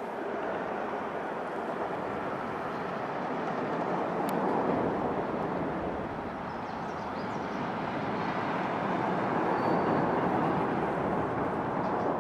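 Traffic crossing the steel truss highway bridge overhead, heard from underneath: a steady rushing noise that swells twice, about four seconds in and again about ten seconds in, as vehicles pass over.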